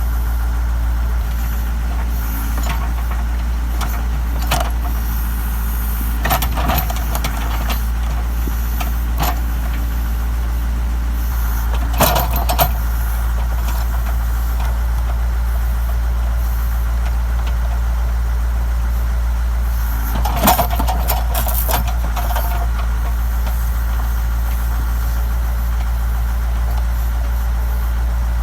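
Backhoe engine running steadily, with a few sharp knocks and cracks over it, the loudest about twelve seconds in and again about twenty seconds in.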